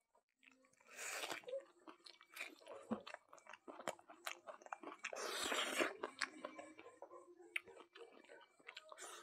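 Close-up wet chewing and lip smacking of a man eating rice and smoked pork. It comes in quick clicks and smacks, with two louder, longer wet stretches about a second in and between about five and six seconds in.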